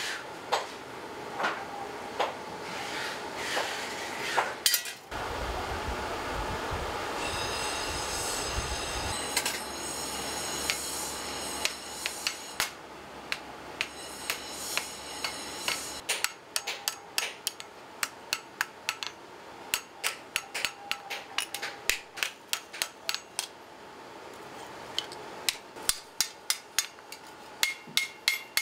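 Hand hammer striking a red-hot homi (Korean hoe) blade on a steel anvil: repeated sharp metallic blows with ringing. The strikes come fast and regular, about three a second, in the second half. A steady low rumble sits under the blows a few seconds in.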